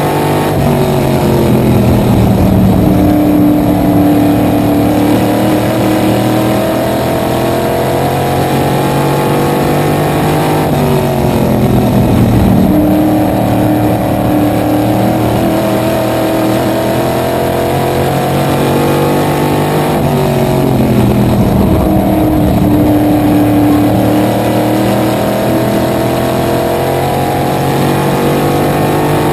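Small block supermodified's V8 engine racing flat out, heard from inside the open cockpit. Its pitch climbs along each straightaway and drops as the driver lifts for each corner, in a cycle repeating about every ten seconds.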